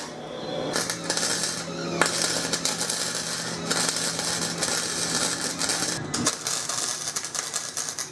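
Arc welding on scrap steel: a steady spitting crackle from the arc, broken by short pauses as the welder stops and restarts the bead, with a faint low hum under it.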